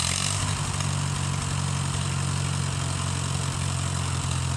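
Farmall M tractor's four-cylinder engine running steadily, a little louder from the first moment on.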